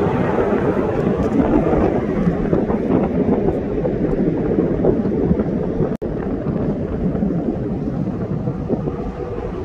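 U.S. Air Force fighter jet flying past overhead: loud, steady jet engine noise that cuts out for an instant about six seconds in, then carries on.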